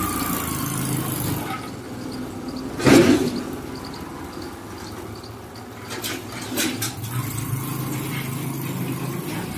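A motor running with a steady low hum, with one loud sudden sound about three seconds in and a few sharp clicks around six to seven seconds.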